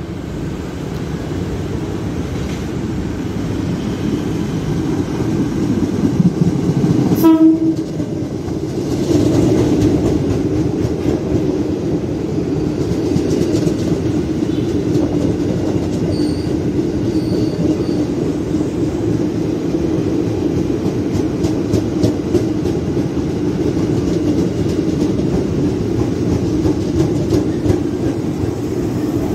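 Electric commuter train (KRL) approaching and running along the platform: a short horn blast about seven seconds in, then the steady rumble of the train's wheels on the rails, with rapid clicking over rail joints.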